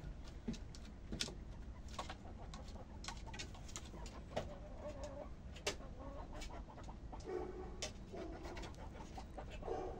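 Chickens settling on their roost making soft, low clucks and murmurs: a few short calls from about four seconds in. Scattered sharp clicks run through it.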